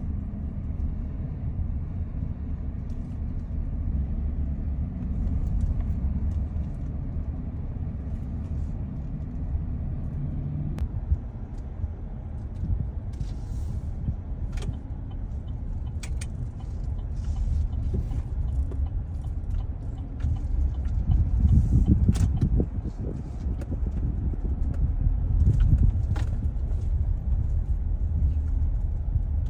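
Car driving at road speed, heard from on board: a steady low engine and road rumble with a few light clicks and rattles, swelling louder a couple of times in the second half.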